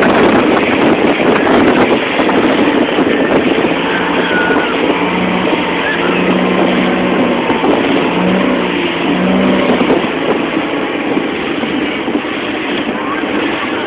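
Motorboat running at speed, its motor and churning wake mixed with a steady rush of wind on the microphone. A few faint wavering calls come through partway in.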